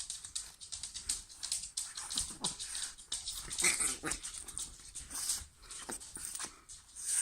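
Dog grumbling and whining in a buzzing, bumblebee-like growl while it holds on to a teddy someone is trying to take, a playful toy-guarding grumble, with brief rustling and scuffling along the way.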